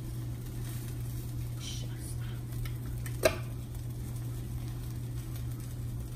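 Spatula working an omelette in a nonstick frying pan, with light scraping taps and one sharp knock of the spatula against the pan about three seconds in, over a steady low hum.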